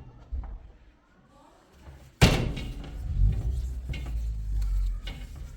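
A loud sharp bang about two seconds in, with a few lighter knocks before and after it and a low rumble following.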